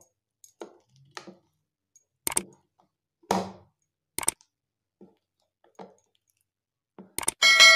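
A plastic spoon beating thick, wet urad dal batter in a plastic bowl, each stroke a short slap about once a second as the batter is whipped until fluffy. Near the end a loud ringing chime sound effect sounds.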